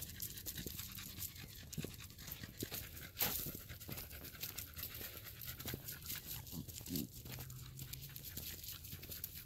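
A dog panting, with footsteps crunching through dry leaf litter.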